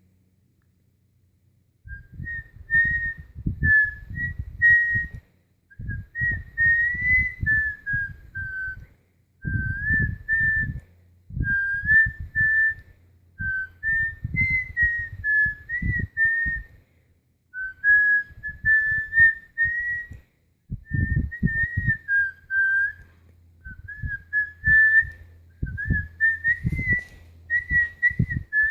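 A person making motorboat lip-trill sounds while carrying a wandering, off-key tune: a high whistle-like melody over a low fluttering buzz of the lips. It comes in short phrases with brief breaks, starting about two seconds in.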